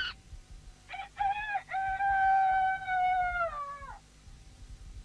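Voice-acted cartoon baby monkey crying out: two short calls, then one long high cry of about two seconds that falls in pitch as it fades.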